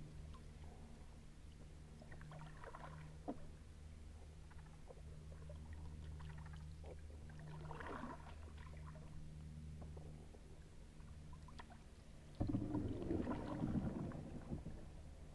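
Kayak paddle dipping into calm river water: soft splashes twice, then a louder stretch of paddle splashing and dripping about twelve seconds in. A faint steady low hum runs under the first two-thirds.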